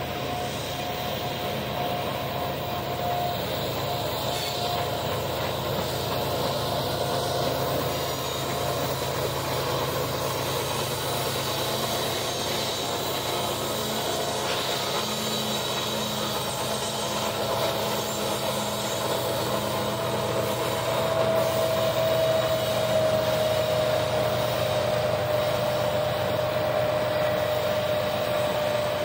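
Train of empty coal hopper cars rolling past with a steady, high wheel squeal that slides slightly lower in pitch over the last third. A mid-train diesel locomotive goes by about halfway through.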